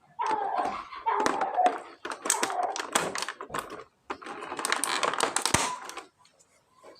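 Dense clicking and crinkling of plastic packaging and toy figures being handled, in several bursts about a second long with short pauses between them.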